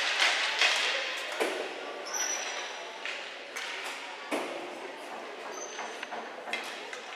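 Ball hockey play ringing through a large, mostly empty arena: sticks and the ball clacking on the floor and boards, indistinct young players' voices, and two brief high squeaks.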